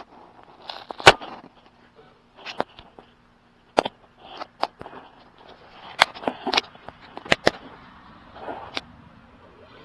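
Sharp knocks and clicks, about nine scattered irregularly, the loudest about a second in, over a faint steady hum.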